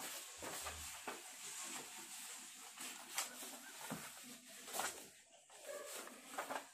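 Faint rustling and crackling of printed paper sheets being picked up and leafed through, in several short strokes.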